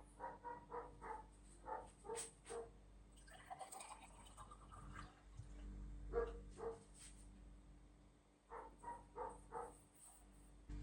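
A dog barking faintly, in runs of short, quick barks with pauses between them, mixed with a few light clicks and clatter.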